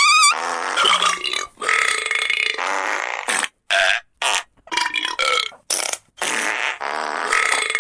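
Sound-effect recording of long, loud burps, one after another with short breaks between them. The speaker calls it a very disgusting sound.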